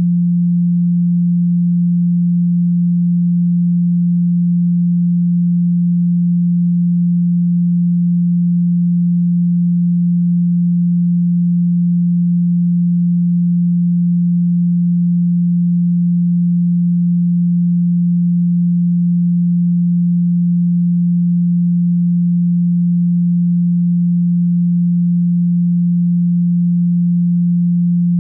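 A steady pure sine tone at 174 Hz, held without change: the Solfeggio 174 Hz frequency used for sound-healing relaxation.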